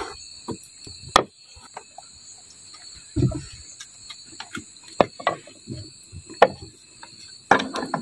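Crickets chirping steadily in the background, with scattered sharp clicks and knocks and a low thump about three seconds in, as cooking pots and bowls are handled.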